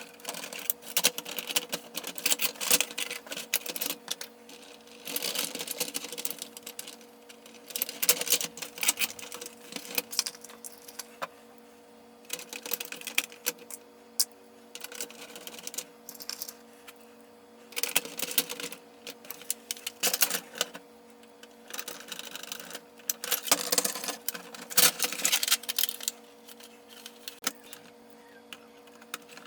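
Hard plastic parts of a vintage Kenner Slave I toy clicking, rattling and scraping in irregular bursts as it is worked apart by hand. A steady low hum runs underneath.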